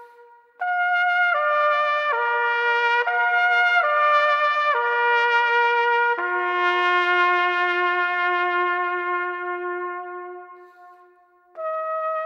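Slow instrumental background music: a melody of held notes, changing pitch about once a second, then one long held note that fades away. A new phrase starts near the end.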